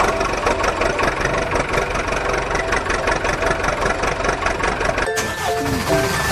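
Heavy vehicle's engine running with a rapid, even rattle, like a truck sound effect. About five seconds in it gives way to a jingle with falling notes.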